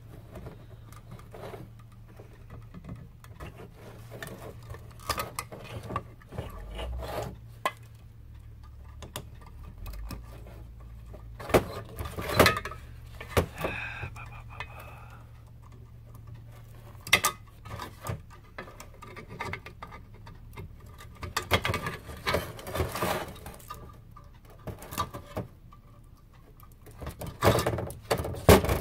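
Diagonal wire cutters snipping the copper wires of an old battery charger's transformer, with metal parts clinking and clanking on a steel workbench in scattered sharp clicks and short clusters. A steady low hum runs underneath.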